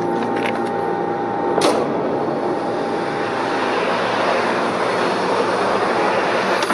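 Jet airliner in flight: a steady rushing roar of jet engines and air that starts about two seconds in, right after a short sharp hit. Before it, steady humming tones with a few light clicks.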